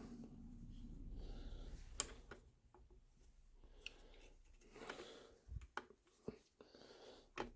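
Faint scattered clicks and light taps of a flintlock lock plate being handled and fitted into its inlet in a wooden gunstock: one sharp click about two seconds in and a few more near the end, over a low steady hum.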